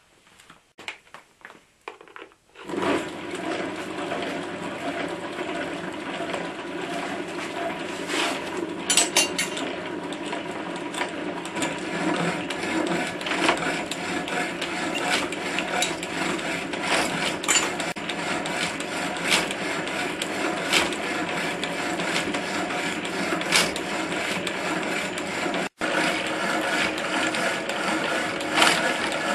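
An old belt-driven electric power hacksaw starts up about three seconds in, then runs steadily, its blade stroking back and forth as it cuts through steel stock.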